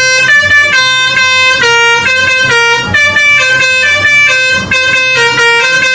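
Telolet-style musical bus horn playing a quick tune of stepping notes.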